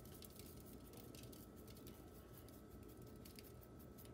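Faint irregular pattering and ticking of dried Italian seasoning being shaken from a glass shaker jar onto salmon in a foil pan, over a faint steady hum.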